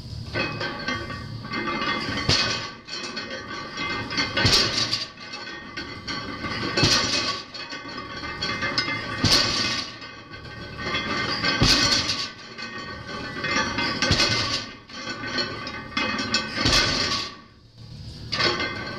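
A barbell loaded with iron plates is set down on wooden blocks at the bottom of each deadlift rep. Each rep gives a sharp thud and clank of the plates, about every two and a half seconds, seven times in all.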